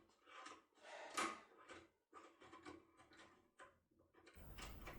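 Faint, irregular metallic clicks and scrapes of a foil-impression power key being worked in a lock cylinder.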